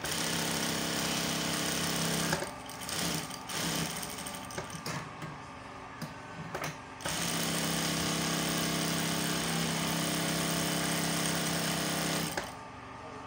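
EMEL M2 direct-drive industrial sewing machine stitching fabric at speed. It runs steadily for about two seconds, then in short stop-start spurts, then steadily again for about five seconds before stopping near the end.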